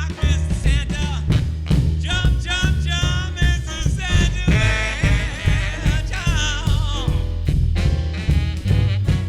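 1930s-style big band swing music: a melody with wide vibrato over a steady bass line and a regular drum beat.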